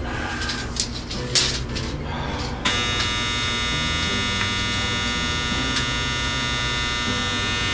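Clothes dryer's buzzer sounding one steady, even buzz for about five seconds, starting suddenly a few seconds in and cutting off at the end: the dryer signalling its cycle is over.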